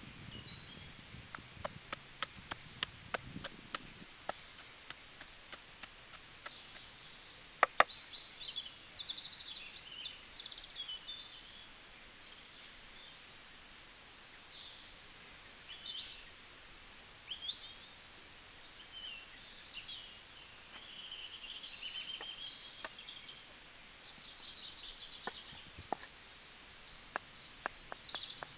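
Many birds singing and calling, with scattered sharp knocks and chopping sounds, the loudest knock about eight seconds in.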